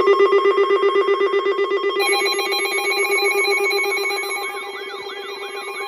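Several weather alert receivers sounding their alarms together at the start of a new warning: a loud, rapidly pulsing buzzy beep, joined about two seconds in by higher beeping tones and, from about four seconds in, a warbling siren-like tone.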